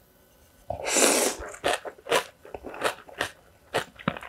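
Someone chewing crunchy food close to the microphone: a loud noisy burst about a second in, then a series of about half a dozen sharp crunches.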